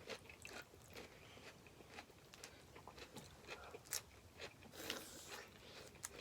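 Faint eating sounds from a seafood boil eaten by hand: chewing with scattered small clicks and crunches. There is a sharper click about four seconds in and a brief crackle just before five seconds.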